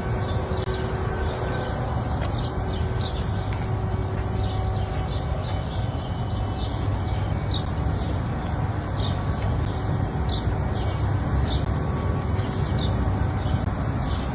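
Small birds chirping in short, repeated calls, roughly once or twice a second, over a steady low rumble.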